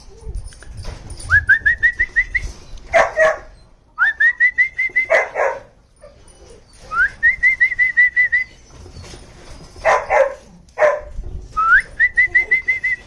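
German Shorthaired Pointer puppies barking a few short barks. Between the barks a high call comes four times: it rises, then breaks into a quick run of short notes at one pitch.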